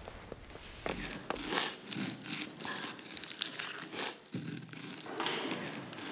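Onions being peeled and prepared by hand: papery skins crinkling and tearing in irregular bursts.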